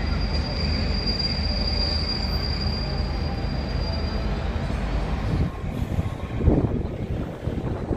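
Train running on the tracks below with a low rumble and a steady high wheel squeal that lasts about four seconds; the rumble drops away about five and a half seconds in.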